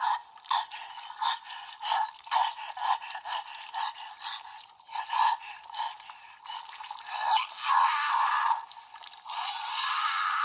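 A toy's small built-in speaker playing Amazon Omega's original-form transformation sound effect from a CSM Kamen Rider Amazons arm bracelet: tinny rasping, scraping pulses in quick irregular succession, getting denser and more sustained about three-quarters of the way in.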